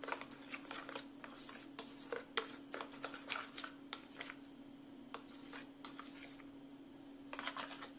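Metal spoon stirring and scraping a thick mayonnaise-and-red-chilli-sauce mix in a plastic bowl, with irregular soft clicks and scrapes against the bowl. A steady low hum runs underneath.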